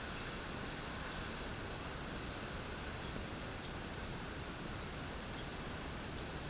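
Light rain falling as a steady even hiss, with a high-pitched insect trill, briefly broken every fraction of a second, running over it.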